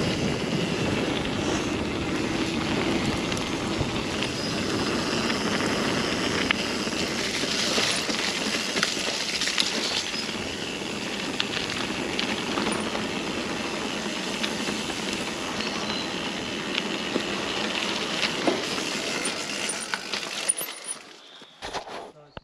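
Mountain bike rolling along a trail: steady tyre and wind noise with scattered clicks and rattles from the bike, fading out near the end.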